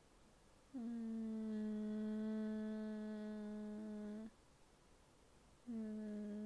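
A young woman humming with her mouth closed: one long held note of about three and a half seconds with a slight scoop at its start, then the same note begun again near the end.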